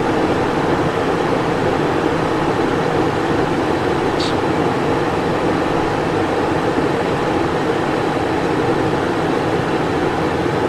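Steady cabin noise inside the cockpit of a Cessna Citation Encore business jet on approach: an even rush of airflow and its twin turbofan engines, unchanging in level. A faint, brief high sound comes about four seconds in.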